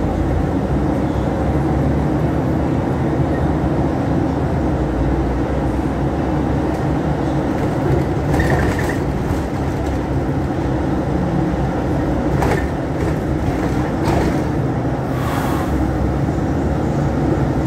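City bus heard from inside the cabin while driving: a steady low engine and road drone, with a few short rattles.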